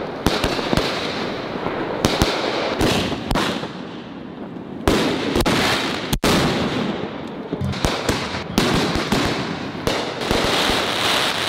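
Consumer fireworks going off in quick succession: many sharp bangs and pops at irregular intervals over a continuous noisy hiss, with a brief gap in the sound a little past halfway.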